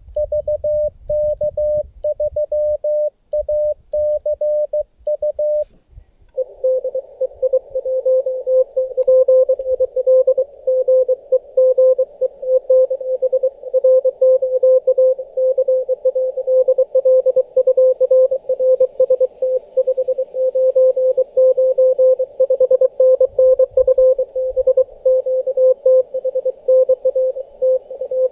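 Morse code (CW) tones from a Xiegu G90 ham transceiver. For about six seconds a clean, higher keyed tone sounds; after a short gap a slightly lower keyed tone takes over, sitting in receiver hiss: a received station sending CW and calling another station.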